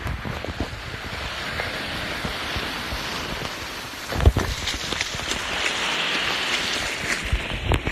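Surf and wind rushing on a camera sealed in a waterproof cover, the rush swelling a little past the middle, with a sharp thump about four seconds in.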